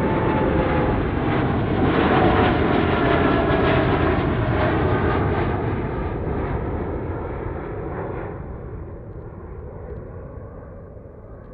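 Aeromexico Boeing 787 Dreamliner's GE engines at climb power as it passes overhead after takeoff. The loud jet noise peaks about two to four seconds in, with a whine that slides down in pitch as the aircraft goes past, then fades steadily as it climbs away.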